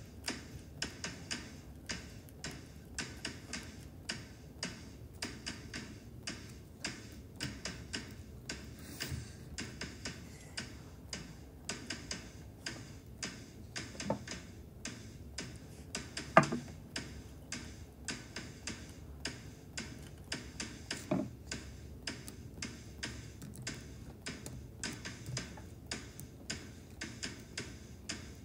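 Steady, evenly spaced ticking, about two ticks a second, with a sharp knock about halfway through that is louder than everything else and a softer knock on either side of it.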